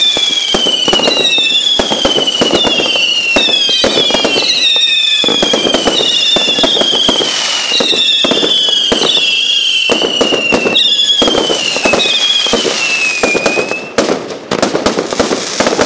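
Fireworks barrage: whistling fireworks fire one after another, each whistle falling in pitch, over dense, continuous crackling and banging. The barrage eases briefly near the end.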